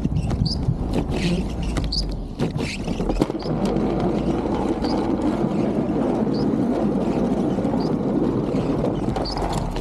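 1999 Chevy Suburban running steadily while it plows snow with its straight blade down, the engine heard from the roof, mixed with the rush of snow pushed along by the blade. Faint high chirps repeat about every half second to a second.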